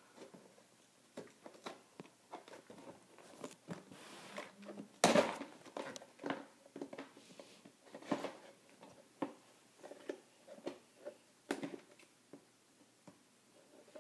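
Cardboard Lego set box being opened by hand: irregular clicks, scrapes and tearing of the flaps and seals, with sharper snaps about five, eight and eleven and a half seconds in.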